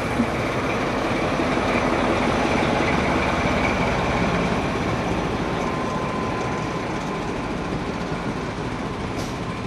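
Diesel train rolling slowly past at close range, engine running, with wheels on the rails. It is loudest a few seconds in and eases off as it moves on.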